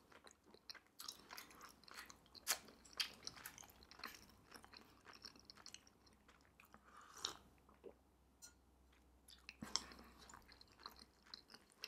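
Close-miked, faint mouth sounds of chewing soft, chewy Korean rice cakes (tteokbokki) in thick spicy sauce: irregular wet clicks and smacks, with a quieter gap about eight seconds in.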